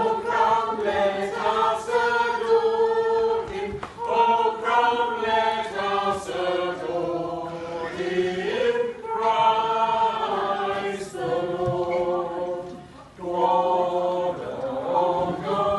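Small mixed choir of men's and women's voices singing together, with a short pause for breath between phrases about two-thirds of the way through.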